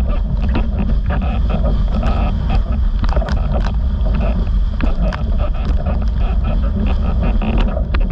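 Heavy wind buffeting on the microphone over the rush of water under a planing windsurf board, with frequent short slaps and splashes of spray as it skims choppy sea.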